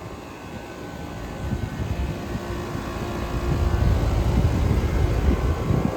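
Trane XR air-conditioner condensing units running: a steady fan whoosh over a low hum, growing louder about three seconds in.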